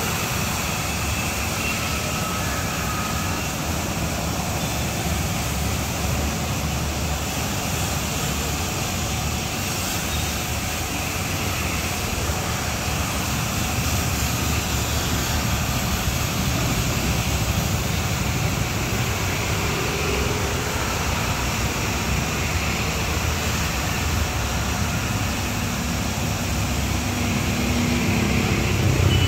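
High-pressure car-wash machine running steadily, with a low motor rumble under the hiss of its water spray; it gets a little louder near the end.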